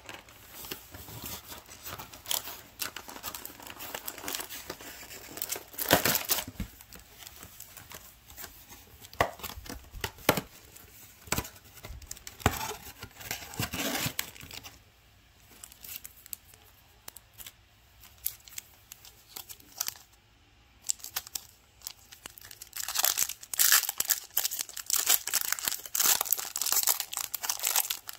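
Cardboard of a Magic: The Gathering booster box being torn open, then the foil wrapper of a booster pack being crinkled and ripped open. Irregular rips and crackles throughout, with a quieter spell midway and dense crinkling near the end.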